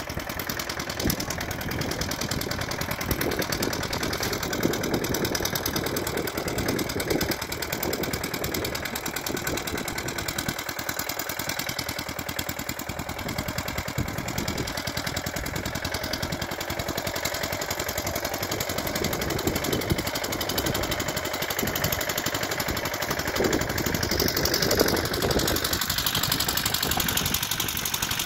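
Engine of a walk-behind two-wheel tractor (power tiller) running steadily as it drives along, with a fast, even chugging.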